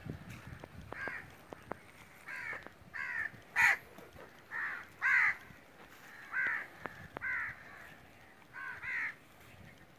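Crows cawing repeatedly, short harsh calls about one every second, with one louder caw about a third of the way in.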